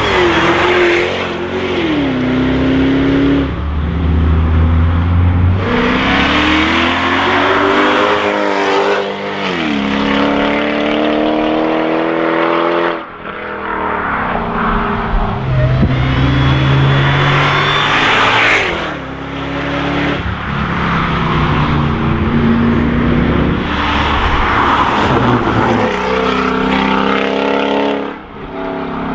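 Supercharged 5.4-litre V8 engines of Mercedes-Benz CLK DTM AMG coupés accelerating hard past. The engine note climbs with the revs and drops sharply again and again at gear changes or lifts, across several passes cut one after another.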